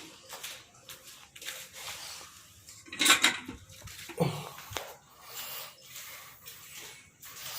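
Murrah buffalo being milked into a metal bucket: rhythmic squirts of milk, about two a second, with a louder clatter about three seconds in.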